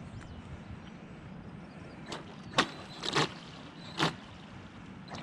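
About five short, sharp clicks or knocks, irregularly spaced over a few seconds, against a low steady background rumble.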